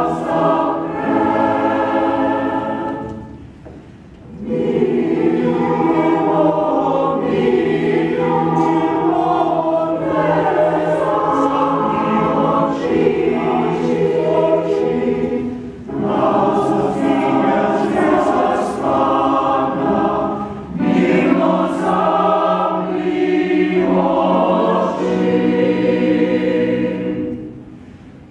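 Mixed choir of men's and women's voices singing a slow Slovenian choral song in sustained chords. The phrases break off briefly about four seconds in and again near the end.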